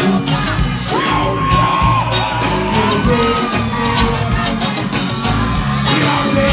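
Live band playing an upbeat song with a steady beat, a male singer on a microphone over it, and shouts from the crowd.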